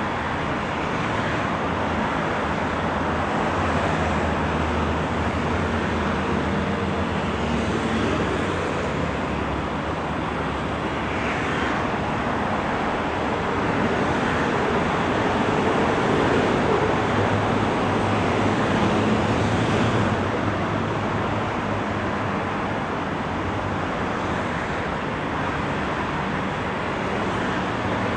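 Steady traffic noise from a busy multi-lane highway: a constant wash of tyre and engine noise from many passing cars and buses, with no single vehicle standing out.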